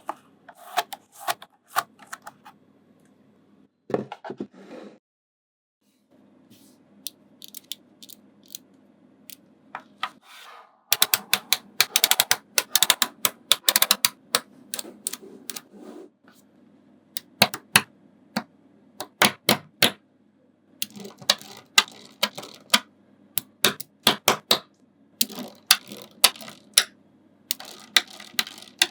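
Small magnetic balls clicking and snapping together as they are set in place, in irregular clusters of sharp clicks with short pauses between. There is a duller rattle about four seconds in and a moment of silence just after it.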